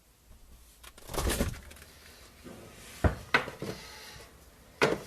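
Several clunks and knocks of a door or things being handled: a longer rattle about a second in, two sharp knocks around three seconds in and another near the end.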